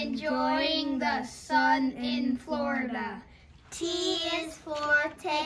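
Children singing, held pitched notes in short phrases, with a brief break about three and a half seconds in.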